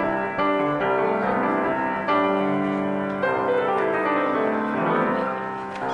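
Piano playing slow, held chords, a new chord struck every second or so.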